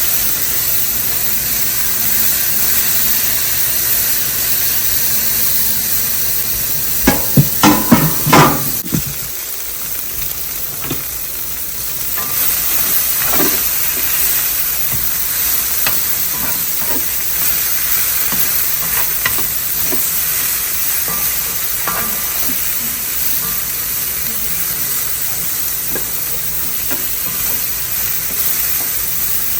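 Asparagus spears sizzling steadily in hot oil in a cast iron frying pan. A quick run of loud clanks against the pan comes about a quarter of the way in as the spears are stirred, followed by scattered lighter clicks.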